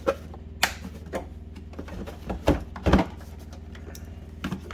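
Knocks and clatter of tools being handled and set back into the toolbox, with a pair of louder thumps about two and a half to three seconds in, over a steady low hum.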